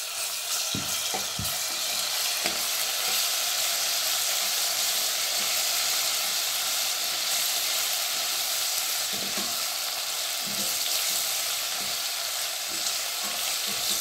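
Onions, chillies and just-added crushed garlic sizzling steadily in hot oil in a stainless steel pot, while a metal spoon stirs them and knocks against the pot now and then.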